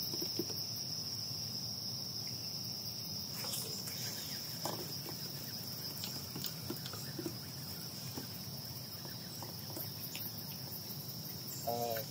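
A steady, high-pitched insect trill, one unbroken tone, over faint outdoor background, with a few faint clicks.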